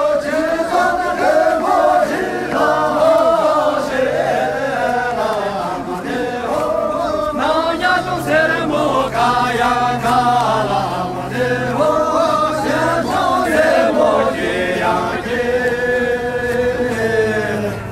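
Men's voices singing together in unison: the chanted song of a Sherpa sherbu line dance, sung by the dancers themselves, in long held phrases that rise and fall.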